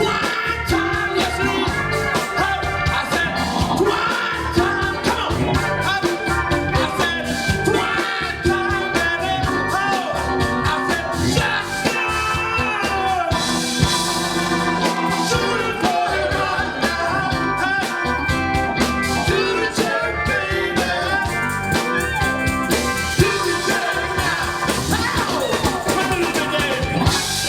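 Live band playing a song with a drum kit keeping a steady beat under guitar and other instruments, with some singing.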